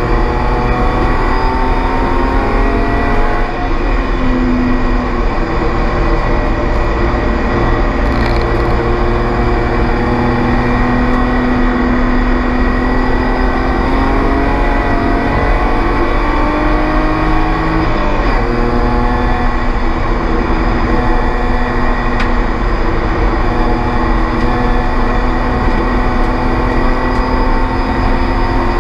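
Spec E36 BMW race car's straight-six engine running hard at race pace, its pitch climbing through the gears and dropping back off in repeated swings. A steady high whine runs over the engine note.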